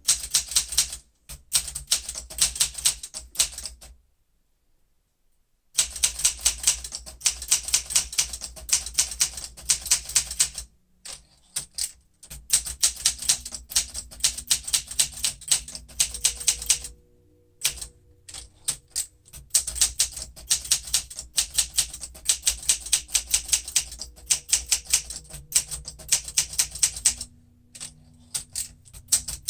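1968 Olympia SM9 manual typewriter being typed on: quick runs of crisp key strikes, several a second, broken by short pauses of a second or two.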